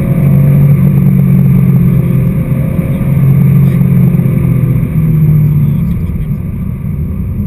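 Porsche 911 SC's air-cooled flat-six engine heard from inside the cabin, pulling at steady revs on the road. There is a brief dip about five seconds in, and the engine eases off a little near the end.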